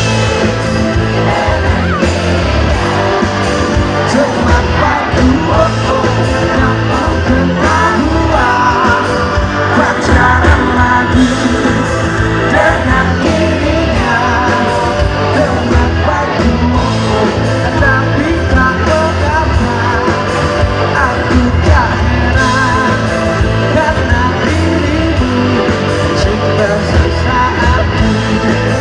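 Live rock band playing a pop-rock song: a male singer over electric guitar, bass guitar and drums.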